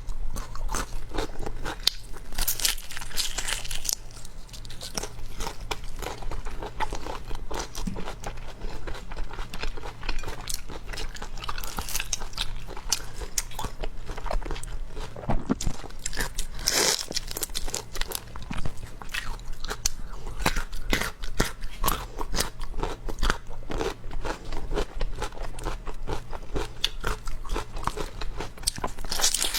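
Close-miked eating: a steady run of crisp crunching and chewing, bite after bite.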